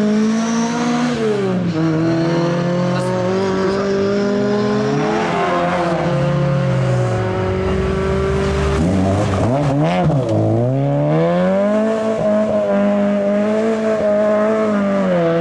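Ford Escort rally car at full throttle on a special stage: the engine note climbs, drops at lifts and gear changes, and climbs again several times. About two-thirds of the way through it dips sharply, then rises quickly.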